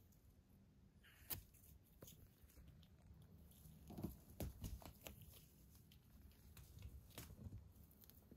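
Faint scratching and rustling of a kitten clawing and biting at the mesh netting of a play tent, with a sharp click about a second in and a cluster of scrapes around the middle.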